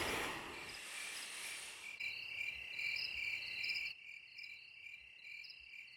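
Crickets chirping in a steady night-time chorus, getting quieter about four seconds in. A soft rushing noise fades out in the first second.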